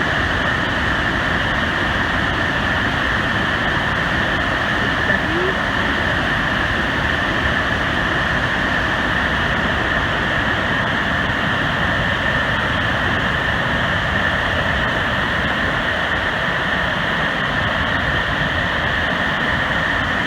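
Steady rushing roar of the Great Falls of Paterson, a large waterfall, with water pouring down continuously.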